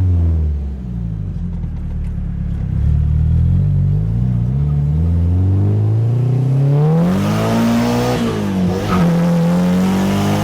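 Nissan SR20DET turbocharged inline-four in a 240SX accelerating under boost. The revs climb steadily, drop briefly at a gear change about nine seconds in, then climb again. It is pulling cleanly on fresh spark plugs with the boost set just below its earlier level.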